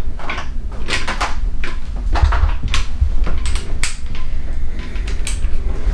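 Scattered clicks and clatters of small objects being picked up and handled on a countertop, over a steady low rumble.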